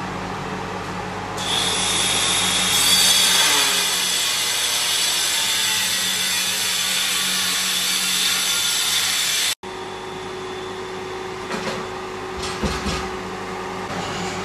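A power tool running with a steady high whine for about eight seconds, cutting off suddenly. Then a steady hum with a few light scrapes.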